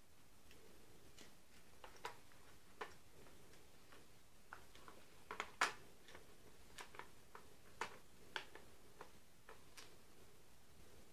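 Faint, irregular clicks and taps of a scope and its mount being handled and fitted onto a gun, the loudest a little past the middle.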